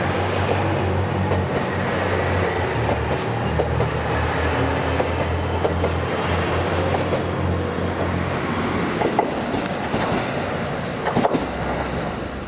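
KiHa 189 series diesel multiple unit (Hamakaze limited express) pulling out of the station, its diesel engines running under power with wheels clicking over the rail joints. The sound fades as it draws away near the end.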